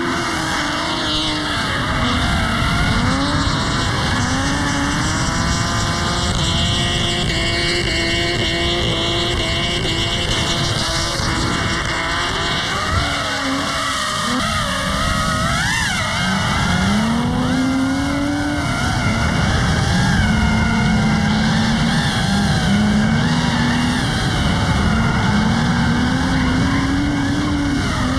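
Drift car engines revving hard, the pitch climbing and dropping back again and again, over continuous tyre screech from cars sliding.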